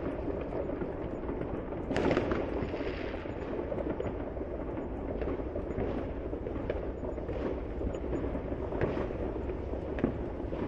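Fireworks going off at a distance: a continuous rumble of overlapping booms with sharper bangs now and then, the loudest about two seconds in.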